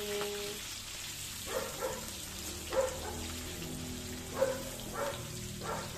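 Onions, lemongrass and curry leaves sizzling in hot oil in an aluminium wok, stirred with a wooden spatula. A dog barks several times in short bursts over it, loudest about a third and two thirds of the way through.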